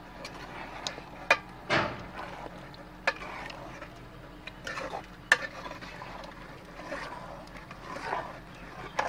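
Steel ladle stirring a potato and eggplant curry in a metal pot, clinking sharply against the pot several times, with one longer scrape about two seconds in.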